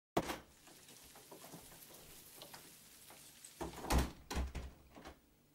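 A door being opened and someone walking into a small room: a sharp knock just after the start, small clicks, then a cluster of heavy thumps about four seconds in.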